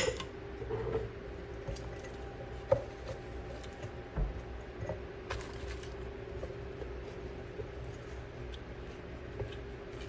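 Hands packing cucumber and onion slices into glass mason jars: soft handling and squishing, with a few light knocks and clinks of glass, the sharpest right at the start. A faint steady hum runs underneath.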